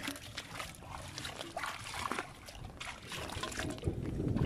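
Shallow water splashing and dripping in small irregular splashes as a wet fishing net is lifted and worked by hand in the water, with low wind rumble on the microphone building near the end.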